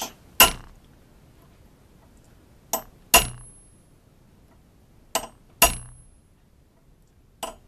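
Hammer striking a steel punch held on the muzzle of a muzzleloader rifle barrel clamped in a vise, stamping decorative marks into the muzzle. Three sharp metallic strikes come about two and a half seconds apart, each with a brief high ring. A lighter tap comes just before the second and the third strikes, and another near the end.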